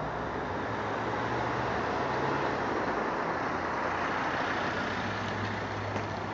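A road vehicle passing: a steady engine and tyre hum that swells a couple of seconds in.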